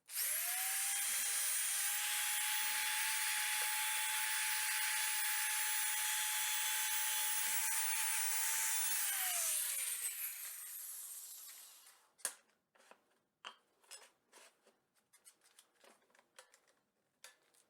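A high-speed electric power tool spins up at once and runs steadily for about nine seconds, a high whine over a broad hiss. It then winds down with falling pitch. Scattered light clicks and knocks follow.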